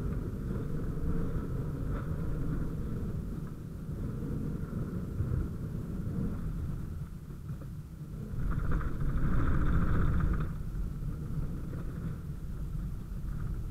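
Vehicle engine running with a steady low rumble, heard from inside the cab. It grows louder for about two seconds, starting roughly eight seconds in.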